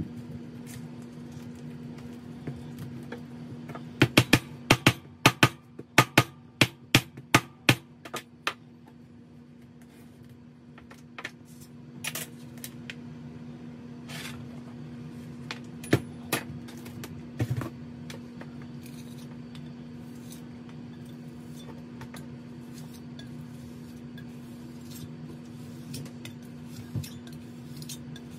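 A quick run of about a dozen sharp taps and knocks over four seconds, then a few scattered clicks, from hand work at a bench with casting sand, a wooden pattern and hand tools, over a steady low hum.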